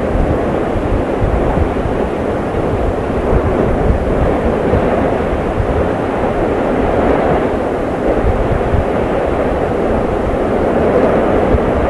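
A steady, loud, low rumbling noise with no distinct tones or separate hits.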